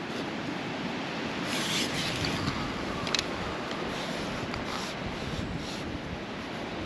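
Outdoor rushing noise from wind on the microphone, with rubbing and rustling and one sharp click about three seconds in.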